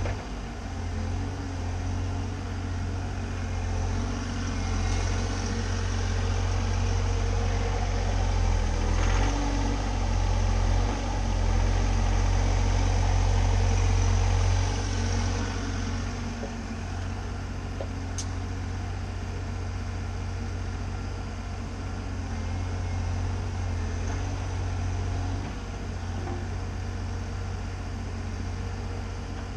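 Bobcat mini-excavator's diesel engine running steadily. It grows louder from about four seconds in until about fifteen, as under working load, then settles back.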